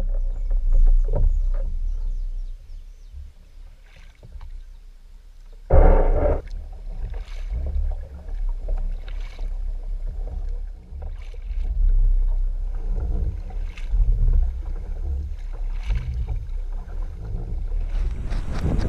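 Kayak paddle strokes: the blades dip and splash in a steady rhythm, with water sloshing at the hull of a sit-on-top fishing kayak and wind rumbling on the microphone. About six seconds in there is one louder splash or knock.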